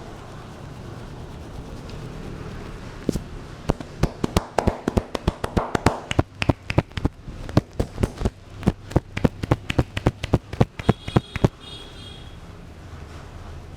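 Head massage percussion: hands slapping and tapping on the head in a fast run of sharp claps, about four a second. The run starts about three seconds in and stops a couple of seconds before the end.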